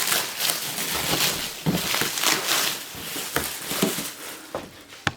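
Rustling and scattered light knocks and clicks of things being moved about and handled.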